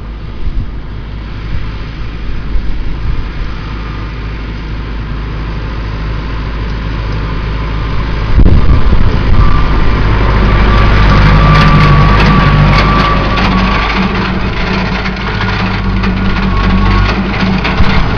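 Farm tractor engine running, growing louder as it comes near and loud from about eight seconds in, with a high whine over it in the middle. Wind buffets the microphone throughout.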